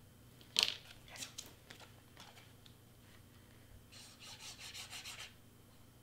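A sharp click, then light paper-handling ticks, then the fine tip of a craft glue bottle scraping and rubbing across cardstock in a quick run of short strokes, about five or six a second, as glue is scribbled onto the paper.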